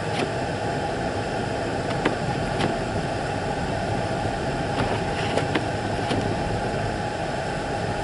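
Steady engine and tyre noise inside a car's cabin while driving on a snow-covered road, with a few faint clicks scattered through it.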